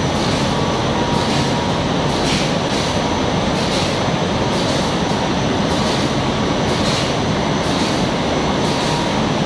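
An 8-colour rotogravure printing press running, its rollers, film web and drying blowers making a steady, even machine noise with a faint high whine.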